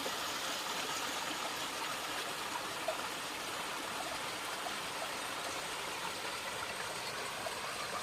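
Small waterfall: water falling and splashing in a steady rush, with a few short drips standing out now and then.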